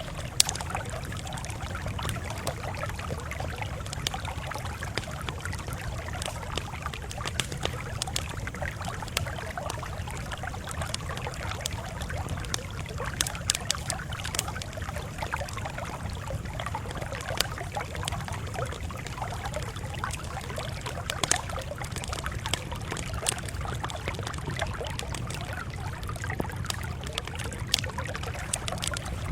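Campfire crackling, with many sharp pops scattered over a steady low rumble.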